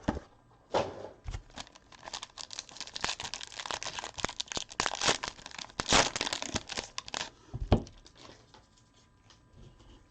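Plastic wrapping on a sealed box of trading cards being torn open and crumpled, a dense crackling that stops near the end.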